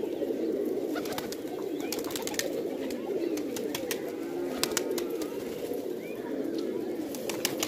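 Many domestic pigeons cooing together, their calls overlapping without a break, with scattered sharp clicks.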